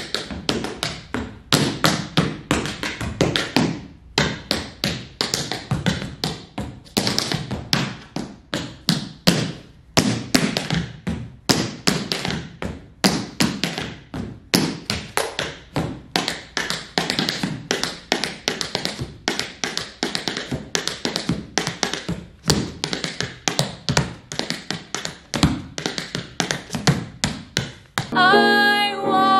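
Tap shoes striking a hard studio floor in an unaccompanied solo tap routine: quick runs of sharp taps, some louder than others. Singing with accompaniment comes in near the end.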